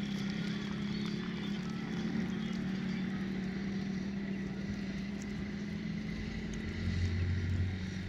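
Steady low drone of a running engine, with a deeper hum that swells louder for about a second near the end.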